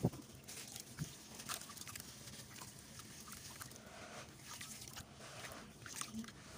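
Wet sand-cement block crushed and crumbled by hand in a tub of muddy water: gritty crunching and squelching with water sloshing. A thump right at the start and a smaller one about a second in.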